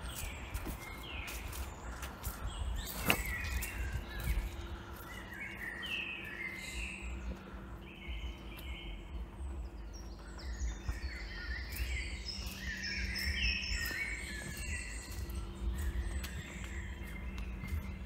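Several songbirds singing and chirping, with many short overlapping phrases, over a steady outdoor background hush. Soft footsteps on a dirt path thud underneath, and there is one sharp click about three seconds in.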